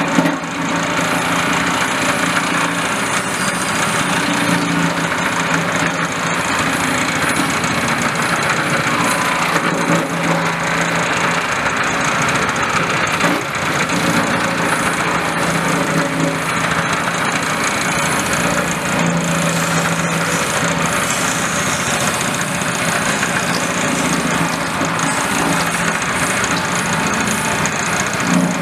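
Small petrol engine running steadily, driving the disc cutter of a palm sugar chopping machine as sugar blocks are pushed in and chopped into granules.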